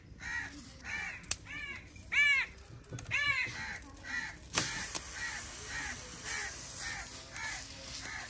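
A crow cawing over and over, about two caws a second, loudest in the first half. About halfway through, a paratha starts sizzling in butter on a hot iron tawa, and the sizzle carries on under the caws.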